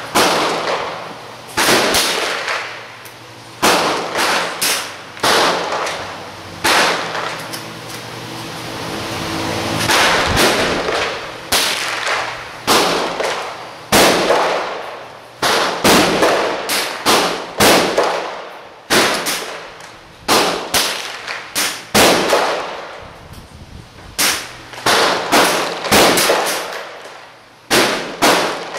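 Gunshots from several guns on a shooting range firing line, sharp reports coming irregularly at about one to two a second, each trailing off in a short echo.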